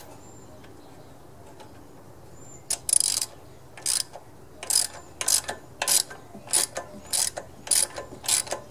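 Socket ratchet clicking in short bursts, starting about three seconds in and repeating every half second to a second, as a spark plug is turned in a small engine's cylinder head. The plug is binding in its threads, which the owner feels is close to stripping.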